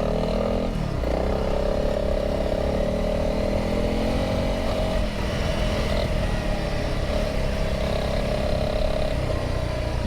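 Honda CRF300L's single-cylinder engine running at steady, fairly low revs as the motorcycle rides slowly through deep sand, with a slight rise and fall in pitch.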